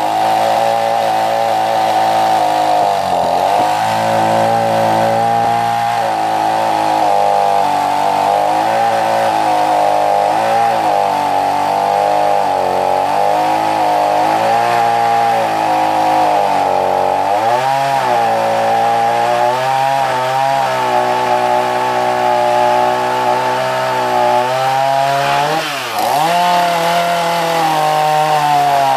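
Cheap Adano gasoline chainsaw with a 16-inch Oregon bar and chain cutting a tree, its two-stroke engine running at high speed. The pitch sags and recovers several times as the chain loads in the wood, with sharp dips about 3 s, 17 s and 26 s in. The owner finds the saw runs at too low an RPM for its power.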